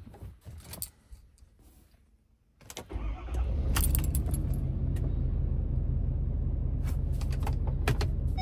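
Keys jangling in the ignition, then about three seconds in the 6.7L Power Stroke V8 turbo diesel starts and settles into a steady idle, heard from inside the cab. A few more key jangles over the running engine.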